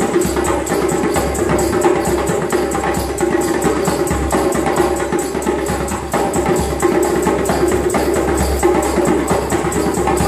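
Busker's live hand percussion: a djembe played in a fast, steady beat of sharp strokes over a steady held tone.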